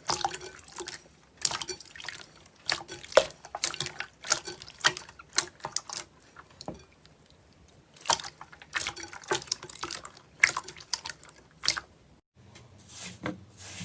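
Slime being squeezed and worked by hand, giving irregular wet clicks and pops. It cuts off suddenly near the end.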